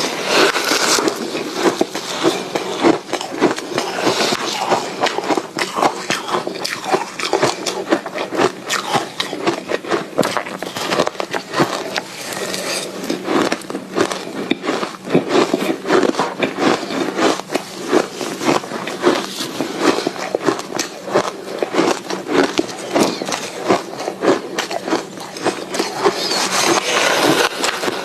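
Soft ice being bitten and chewed close to the microphone: a dense, continuous run of crackly crunches.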